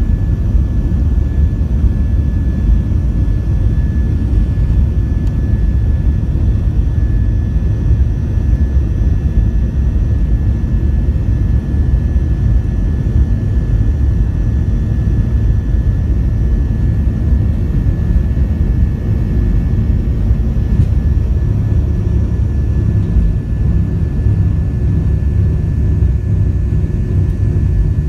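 The Boeing 737-700's CFM56-7B turbofan engines at takeoff power, heard inside the cabin beside the wing. It is a steady, loud deep rumble with a thin, steady high whine above it as the jet runs down the runway and climbs away.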